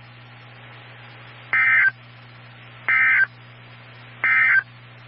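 Emergency Alert System SAME data tones: three short, high-pitched bursts about a second and a half apart, the end-of-message code that closes an EAS severe thunderstorm warning. A steady low hum and hiss runs underneath.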